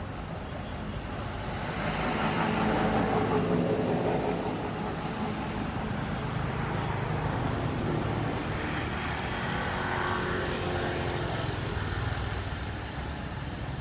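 Motor vehicles passing by over a steady low rumble, one swelling up about two seconds in and another around eight to ten seconds in.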